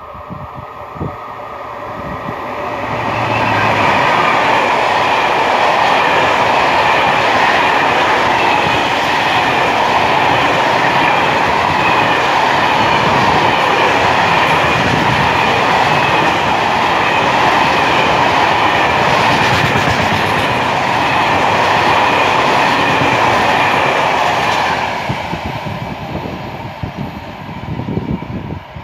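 A VR Sr1 electric locomotive hauling a long freight train of loaded timber wagons passes close by, with steel wheels rolling and clattering on the rails. The sound swells over the first few seconds and stays loud while the wagons go by. It falls away about 25 seconds in as the end of the train passes.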